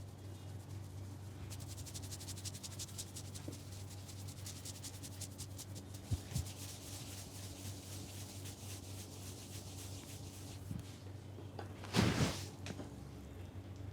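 Hands rubbing rapidly through hair and over the scalp in a head massage: a fast, scratchy rubbing that eases off after several seconds, then a short, louder rub near the end.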